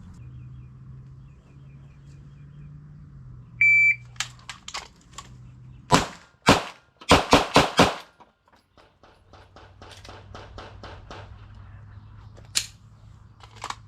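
Shot-timer start beep, then about two seconds later six 9mm pistol shots from a Glock 17 fired as fast as possible in a Bill drill, the last four in quick succession; the string takes about 4.2 seconds from the beep.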